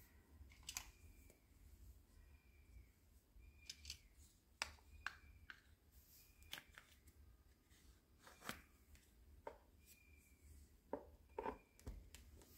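Hard plastic toy parts tapping and clicking as they are handled and fitted together: a plastic pole pushed through a plastic topper and into a plastic cart. The clicks are sparse and quiet, with soft rubbing between them and a quick cluster of clicks near the end.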